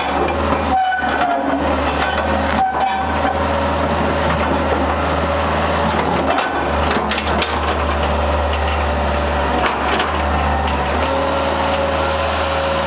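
A Hitachi hydraulic excavator's diesel engine runs steadily under load while the boom presses down and the upper body swings round. Over it sits the whine of the hydraulic system, a few high tones that shift as the controls are worked.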